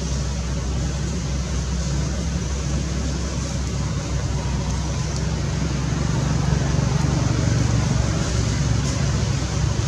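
Steady low engine rumble and hum, getting slightly louder about six and a half seconds in.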